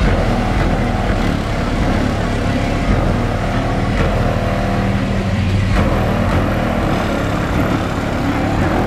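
A car engine running steadily with a deep, even sound, most likely the red box-body Chevrolet coupe's engine.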